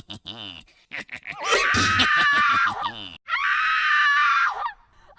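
A high-pitched voice screaming twice in distress, each scream a second and a half or more long, the second falling off at the end. They come after about a second of quick stuttering chirps.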